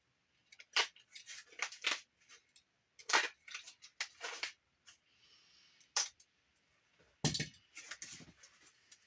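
Paper and packaging crinkling and tearing in short, irregular bursts as a mail package is opened by hand and its contents handled, with a heavier thump about seven seconds in.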